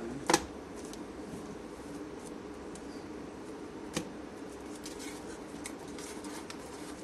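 Objects being handled during an unboxing: one sharp click near the start, another about four seconds in, and a few faint ticks over a steady hum.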